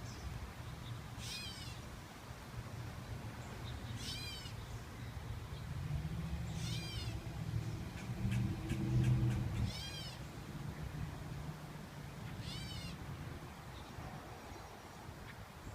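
Gray catbird giving its cat-like mewing call five times, one short slurred mew about every three seconds. A low rumble runs underneath.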